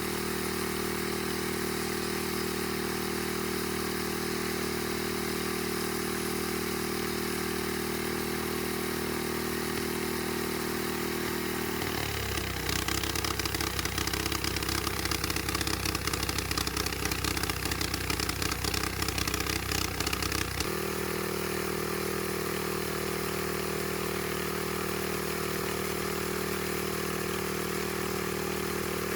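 Homemade sawmill's engine-driven saw running steadily. About twelve seconds in, its pitch drops and a rasping cutting noise comes in as the blade works through a log. This lasts about nine seconds, then it returns to a steady free run.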